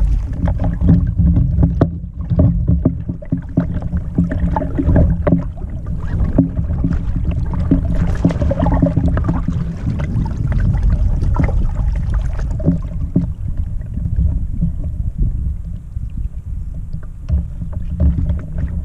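Wind rumbling on the microphone over water slapping against a small boat. Frequent small knocks and splashes come from the hooked black bass at the surface and the landing net being handled.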